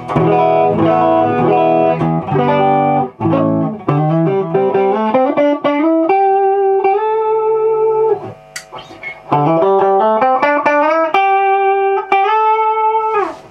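Gibson Les Paul Deluxe with P90 pickups, on the neck pickup, played loud through a hand-built Hiwatt DR103 clone 100-watt valve head and a cabinet of four Eminence Tonkerlite speakers, with a slightly crunchy tone. Strummed chords give way to rising single-note runs that each end on a long held note, and the last note slides down near the end.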